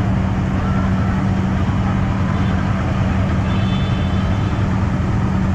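Engine running steadily with a constant low hum.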